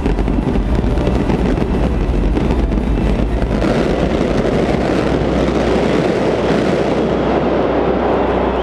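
Large fireworks display heard through a GoPro's microphone: a continuous loud rumble of shells bursting, dense with crackling.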